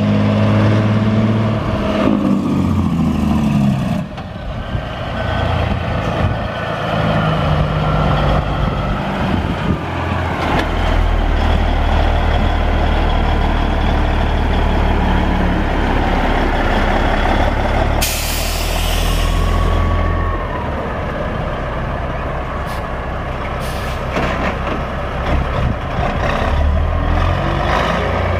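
A 1984 Peterbilt 359's Caterpillar 3406B six-cylinder diesel running, with the revs falling off about two seconds in. About two-thirds of the way through comes a hiss of released air lasting about two seconds, from the truck's air system.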